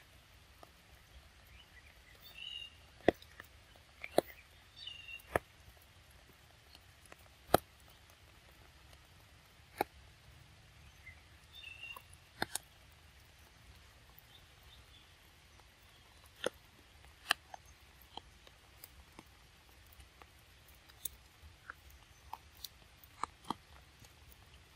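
Macaques eating mango: scattered sharp wet smacks and clicks of chewing and handling the fruit, irregular and some seconds apart. A few brief high chirps come a few seconds in and again near the middle.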